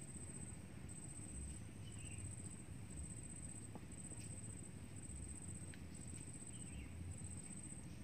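An insect trilling at a high pitch in even pulses of under a second, about one a second, over a faint low rumble.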